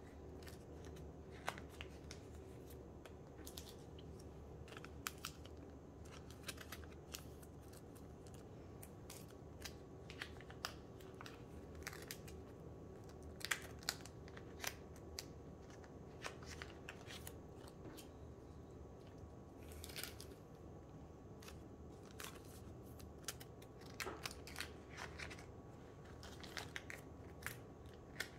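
Faint, irregular clicks and rustles of plastic as photocards are slid in and out of binder sleeves and handled.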